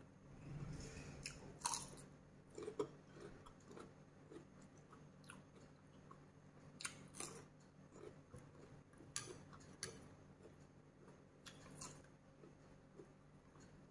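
Faint, close-miked chewing of crisp raw vegetables such as cucumber, with a handful of sharp crunchy bites scattered through.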